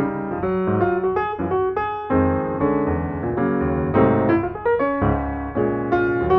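Background piano music: a flowing run of notes over sustained bass notes.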